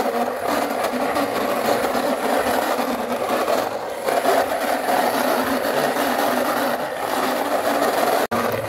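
Red plastic Lightning McQueen toy race car pushed back and forth by hand across a smooth floor, its plastic wheels rolling with a continuous whirring rattle that breaks off for an instant near the end.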